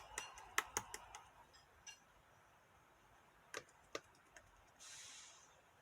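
Slime being handled, with a quick run of faint sticky clicks and pops, two more a few seconds later, and a short soft squishing rustle near the end.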